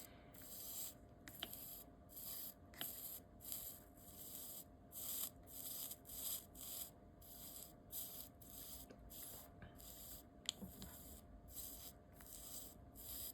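Soldering iron tip being wiped back and forth on a cleaning sponge, a faint rhythmic rubbing at about two strokes a second, cleaning oxidation off the tip.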